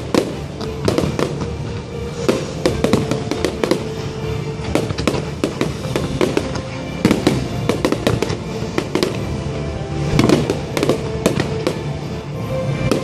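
Fireworks bursting in quick succession: a dense run of sharp bangs and crackles, thickest about seven and ten seconds in, over show music with held tones.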